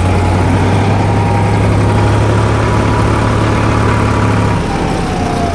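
Diesel engine of a Sonalika Tiger DI 50 tractor running steadily while the tractor is driven, a loud low hum with rumble; the engine note drops slightly about four and a half seconds in.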